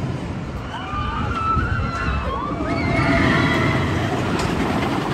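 RMC wooden roller coaster train rumbling along its track, with riders' high-pitched screams over it about a second to three seconds in.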